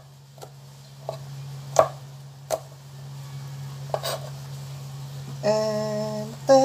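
Kitchen knife chopping garlic on a cutting board: a handful of sharp, unevenly spaced knocks of the blade against the board. A held musical note comes in near the end.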